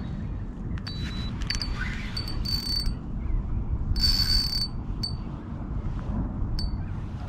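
Spinning reel's drag clicking as a hooked fish pulls line: scattered single clicks, then two short buzzing runs about two and a half and four seconds in. A steady low rumble underneath.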